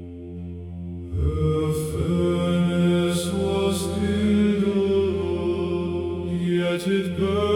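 Slow chanted vocal music over a low, steady drone; the voices come in about a second in and hold long notes.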